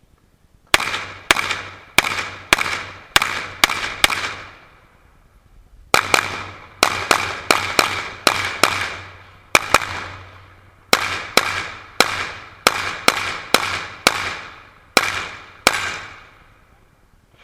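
Pistol shots fired rapidly in an IPSC stage run: about 27 sharp cracks, each with a short ringing echo, in quick strings of two to eight. There is a pause of about two seconds after the first seven shots and a shorter one a little past the middle.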